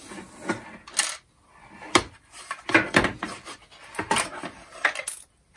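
Irregular clicks, knocks and rubbing as the hard plastic housing of a Makita DCF203 cordless fan is shifted and handled on a metal workbench, about ten sharp knocks scattered over a few seconds.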